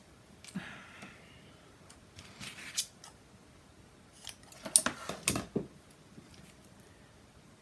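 Red-line double-sided tape being pulled off its roll in short rasps, then a cluster of quick scissor snips and rustling about five seconds in as a strip is cut.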